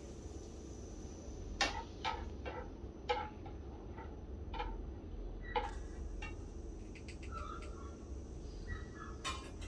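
Light clicks of wooden chopsticks against a wire strainer of fried lemongrass, about six spread over a few seconds and a few more near the end, over a low steady hum.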